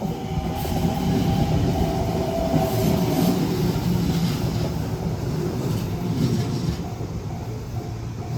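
A train passing over a level crossing: a loud, steady rumble of wheels on rail. Over it the crossing's warning bell dings about twice a second, coming through clearly near the end as the train noise eases.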